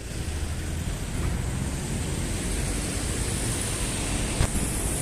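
City street ambience: a steady noisy rumble of traffic, with one sharp click near the end.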